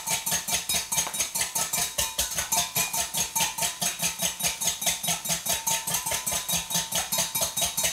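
Wire whisk beating a vinaigrette in a glass bowl: rapid, even strokes clicking and swishing against the glass, about seven a second, as oil is drizzled in to emulsify the dressing.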